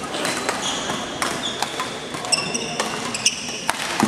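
Badminton play in a large sports hall: shoes squeaking on the wooden court floor and shuttlecocks being struck by rackets, with a run of sharp hits and squeaks busiest past the middle.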